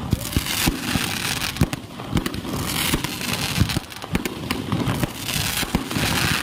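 Fireworks display: rockets and aerial shells bursting in a rapid, uneven run of sharp bangs and pops, with dense crackling between them.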